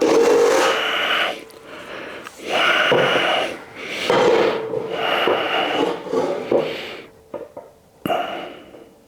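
Electric drill with a step bit cutting holes through a steel bar, run in short bursts of about a second each: a pitched motor whine with the grinding of the bit in the metal, stopping and starting about five times.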